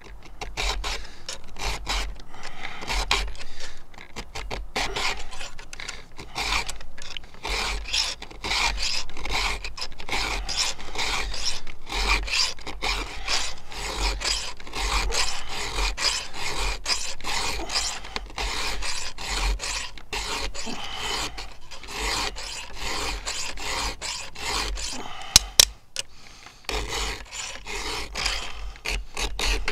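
A round chainsaw file rasping across the cutter teeth of a 3/8-pitch chain on a Stihl MS661, sharpening the dull chain by hand in a steady run of push strokes with short breaks between them. Two sharp clicks come a few seconds before the end.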